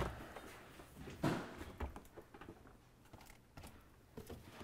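Quiet room tone with a few faint, short knocks and rustles.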